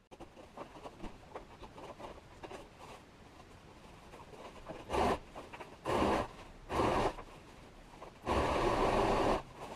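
Electric domestic sewing machine stitching fabric in four short runs, the last and longest lasting about a second, after a few seconds of fabric being rustled and handled.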